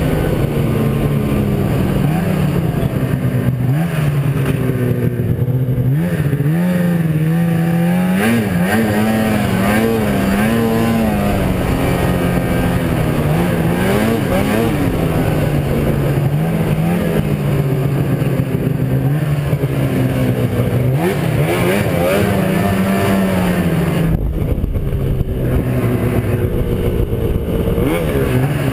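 Arctic Cat snowmobile engine running under way, its pitch rising and falling with the throttle as the sled rides the trail, steadier in the second half.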